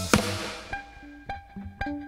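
Live band playing: a loud drum-and-cymbal crash just after the start rings out and fades, then single plucked string notes follow about every half second.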